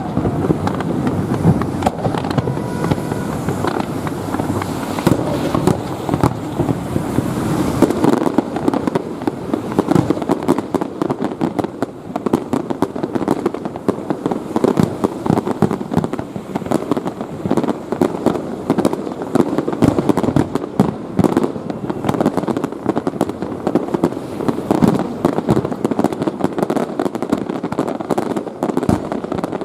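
Fireworks display: a dense, unbroken run of bangs and crackling, many reports a second.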